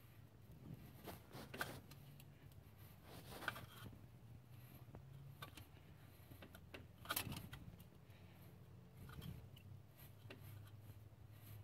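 Faint handling noises of a hand working around the engine's serpentine belt and pulleys: a few soft clicks and scrapes, the loudest a short scrape about seven seconds in, over a low steady hum.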